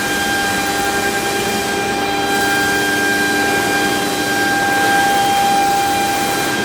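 ELE2128ATC CNC router running, a steady whine of several held tones over a constant mechanical hum.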